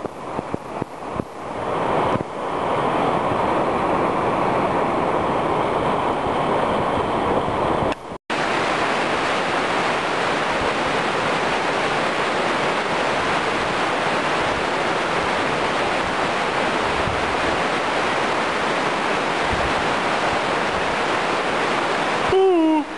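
Steady rushing of a river cascading over rocks at a cave mouth. A few knocks sound in the first couple of seconds, and the sound cuts out abruptly about eight seconds in. After the cut the rushing returns brighter and fuller.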